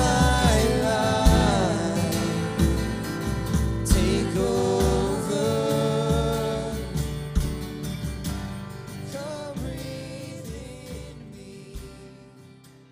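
Church worship song, a singing voice over a band with drums, fading out gradually until it is faint near the end.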